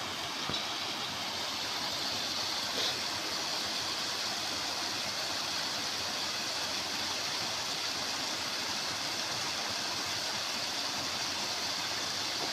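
A stream (arroyo) of water flowing with a steady, even rushing, broken only by two faint brief ticks in the first three seconds.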